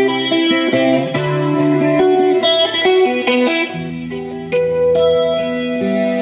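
Guitar-led rock ballad, a clean picked electric guitar, playing over a 2012 Ford Fusion's 12-speaker Sony sound system inside the car. Deeper bass notes come in about four seconds in.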